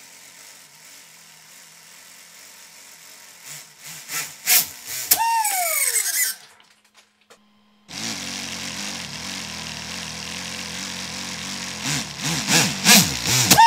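Brushless RC motor driving a Lego V8 engine model, clattering and knocking as it spins up. It then winds down with a whine that falls steeply in pitch. This happens twice: once near the middle and once at the very end.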